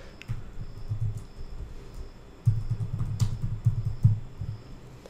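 Typing on a computer keyboard: two short runs of keystrokes in the first second, then a longer, louder run of quick keystrokes from about halfway through to near the end.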